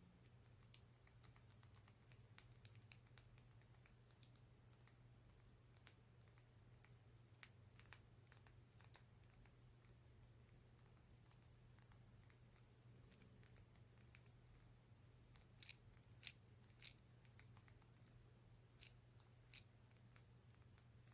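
Soft, scattered taps and clicks on a lip gloss tube, with a few sharper, louder clicks close together about three-quarters of the way through. A steady low hum runs underneath.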